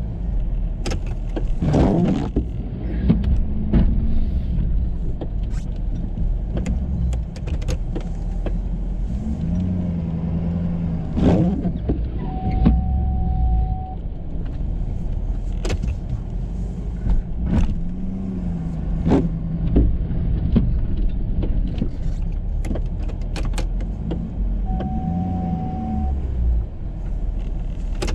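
Pickup truck engine running steadily under a snow plow, heard from inside the cab, with an electric-hydraulic plow pump whining in short spurts of a second or two several times as the Boss plow is moved. A brief steady beep sounds twice, and scattered knocks come through.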